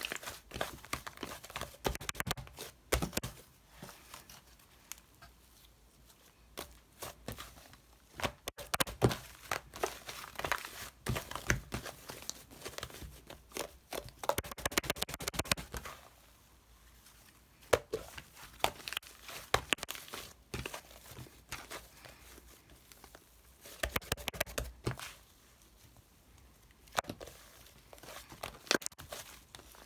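Bursts of close scratching, tapping and crinkling sounds, as of small objects or packaging being handled, coming in clusters with quieter gaps between.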